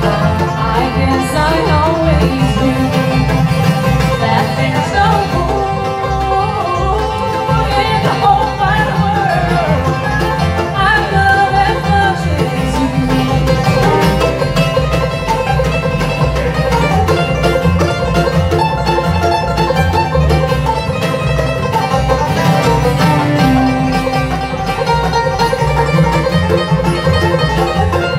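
Live bluegrass band playing an up-tempo tune on banjo, fiddle, dobro, mandolin, acoustic guitar and upright bass, with a steady bass and rhythm pulse under the lead lines.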